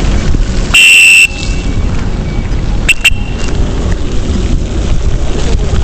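Steady rumble of road traffic with wind on the microphone. Less than a second in comes one loud, high-pitched beep lasting about half a second. Around three seconds in come two brief, sharper beeps.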